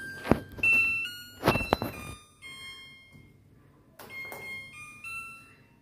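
Godrej Eon Allure top-load washing machine's control panel beeping as its buttons are pressed: a string of short electronic tones stepping between pitches. Two sharp thuds in the first two seconds are the loudest sounds.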